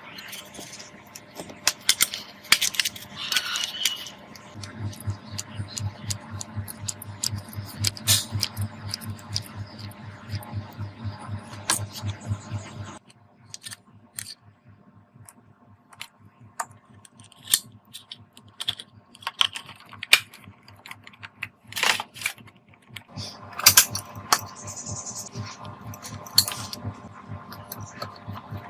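Repeated small clicks and knocks of fan parts being handled and fitted. A steady electric hum runs for several seconds from about five seconds in and cuts off abruptly.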